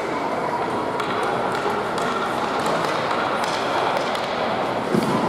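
Ice rink sounds: skate blades scraping and a hockey stick tapping the puck over a steady arena hum, with a sharper knock near the end as the puck is struck.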